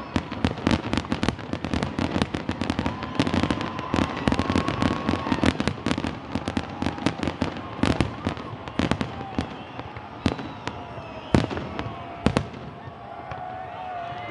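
Fireworks display: aerial shells bursting in a rapid barrage of bangs and crackles, thinning to a few separate booms after about ten seconds, with some whistling tones among them.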